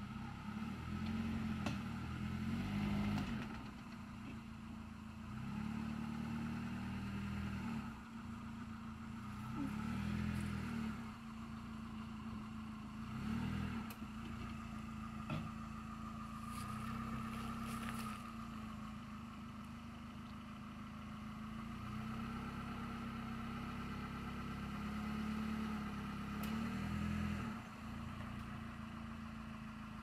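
Mitsubishi Pajero TR4's four-cylinder engine running at low revs as the lifted SUV crawls up through deep erosion ruts, the revs swelling and easing every few seconds, with a few sharp clicks.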